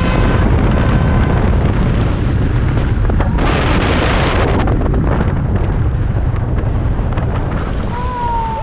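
Steady loud roar of a large waterfall in monsoon flood, Jog Falls in full flow, with a deep rumble and wind on the microphone.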